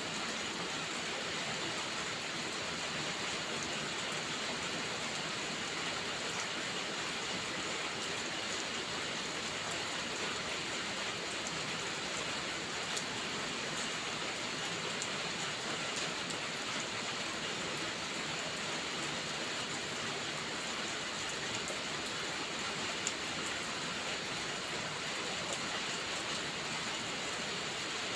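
Heavy rain falling steadily, an even hiss with no let-up, with a few faint, sharp ticks scattered through it.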